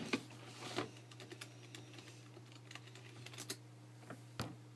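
Irregular keystrokes on a computer keyboard, with a few sharper clicks scattered among them, over a steady low hum.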